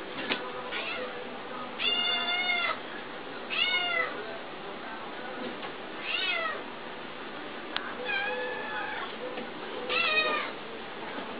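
A cat meowing five times, a couple of seconds apart, some meows short and others drawn out to about a second.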